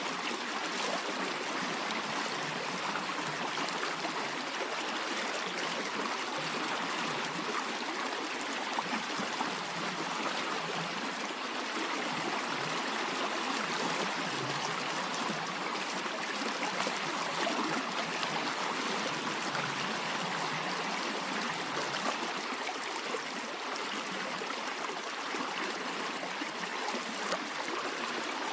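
A stream of water flowing steadily.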